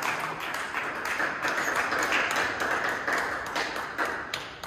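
Table tennis ball clicking against bats and table in play, sharp ticks at uneven spacing over a steady hiss of hall noise.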